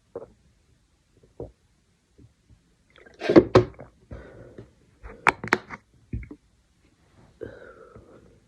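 A person burping while drinking water: a loud burp about three seconds in, a few short sharp sounds a couple of seconds later, and a longer, drawn-out one near the end.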